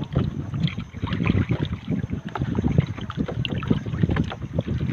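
Wind buffeting the microphone in uneven gusts, over sea water sloshing and splashing around a person wading waist-deep.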